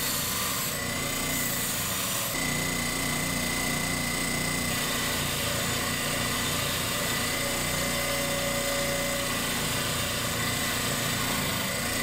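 Bench grinder motor running steadily with a constant hum and a faint high whine, its wheels spinning freely.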